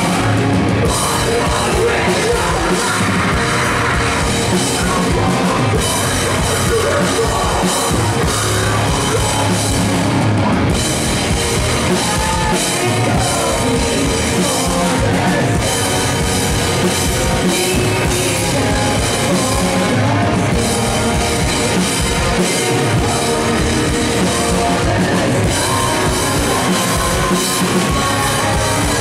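Post-hardcore band playing live: electric guitars, bass guitar and a full drum kit at full volume, with vocals over it, continuous and loud throughout.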